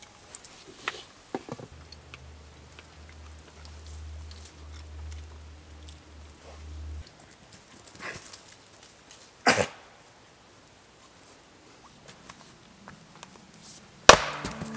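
An axe striking a round of wood standing on a chopping block, one sharp split near the end; an earlier sharp knock comes a few seconds before.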